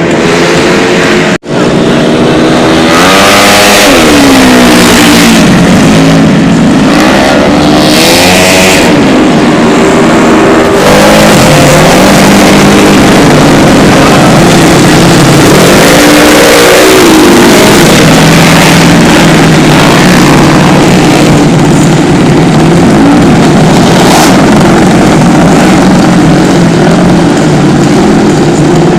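130 cc automatic scooter engine being revved over and over, its pitch climbing and falling again and again, very loud at the microphone. There is a brief cut-out about a second in.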